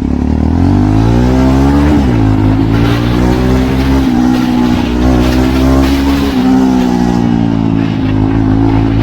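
Jawa Perak's single-cylinder engine pulling away under acceleration, rising in pitch for about two seconds. The pitch drops at a gear change, then the engine runs at a fairly steady cruise with small throttle changes.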